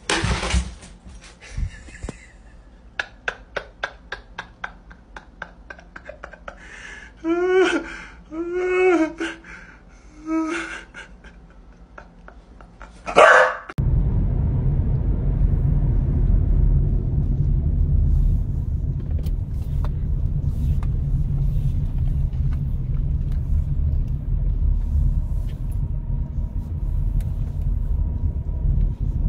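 A dog barks a few times, the last bark the loudest; then the steady low rumble of a car being driven, heard from inside the cabin, takes over about halfway in.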